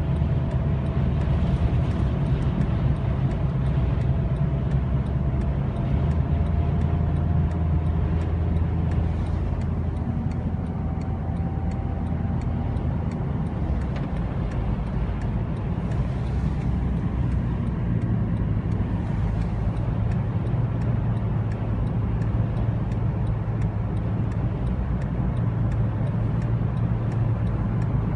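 Car driving on a highway: steady low road and engine rumble, with a faint whine slowly rising in pitch over the first half and faint regular ticking.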